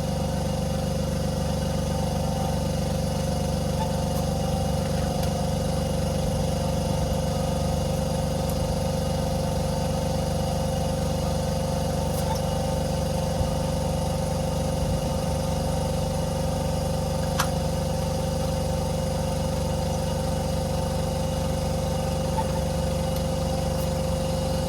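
Electric tyre inflator running steadily, pumping air into a moped's flat rear tyre, with a constant motor hum.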